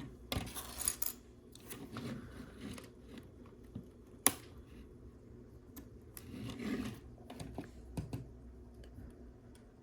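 Small plastic LEGO pieces being handled and pressed together: rustling as pieces are picked through, with scattered small clicks and one sharp click about four seconds in.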